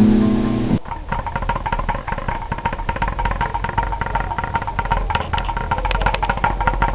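Guitar music cuts off under a second in, giving way to a running machine with rapid, even clicking and a steady whine.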